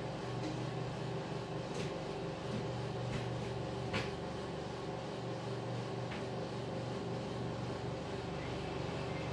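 A steady mechanical hum with a few faint clicks, one a little louder about four seconds in.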